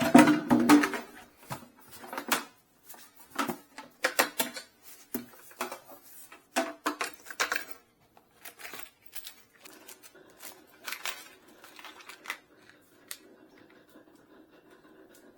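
Irregular clicks, taps and short scrapes of hard objects being handled, loudest in the first half. A faint steady hum comes in about ten seconds in.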